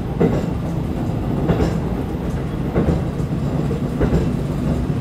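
Diesel railcar running along the track, heard from inside the front of the car: a steady engine hum under the clack of the wheels over rail joints, about one clack every second and a quarter.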